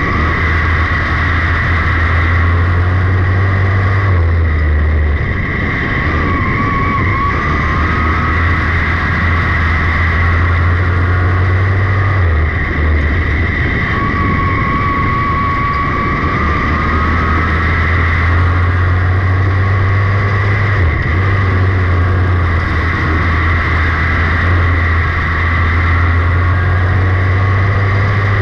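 V8 engine of a 602 sportsman dirt-track car running hard at racing speed, heard from on board the car. Its note dips briefly about every eight seconds as the driver lifts for the turns, then picks up again.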